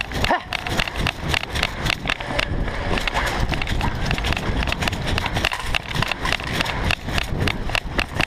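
Running footsteps on a concrete floor, an even quick stride of about three steps a second, over a low rumble of movement on the body-worn camera's microphone.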